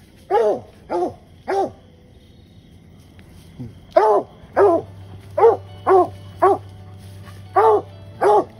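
Coon dog barking in short chop barks at a tree, the bay of a dog with a raccoon treed. Three quick barks, a pause of about two seconds, then a steady run of about two barks a second.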